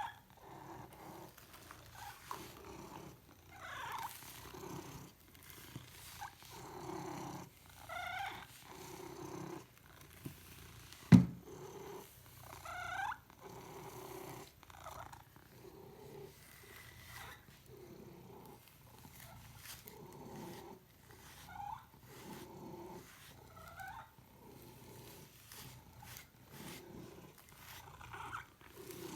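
Domestic cat purring in a steady rhythm that swells and fades with each breath, broken every few seconds by short, high, rising squeaks. There is one sharp click about eleven seconds in.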